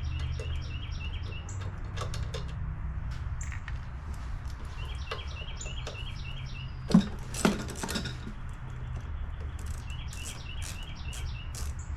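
Light metallic clinks and clicks of hand tools working on a lawn mower while the carburetor is taken off, with two louder knocks about seven seconds in. Birds chirp in short repeated phrases in the background.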